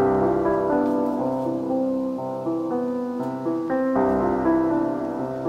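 Background piano music, a melody of held notes that change every fraction of a second.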